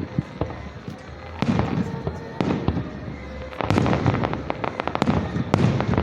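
Fireworks display finale: aerial shells bursting with deep booms, sparse at first, then a dense volley of rapid bangs from a little past halfway.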